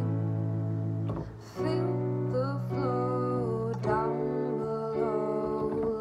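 Electronic home organ playing a slow piece: held bass notes and chords under a melody, with a short drop in level between chords about a second and a half in.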